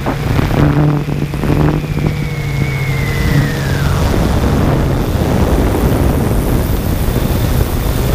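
Yuneec Typhoon G quadcopter's propellers and motors buzzing, picked up by its own onboard camera, with a steady low hum over a rushing noise.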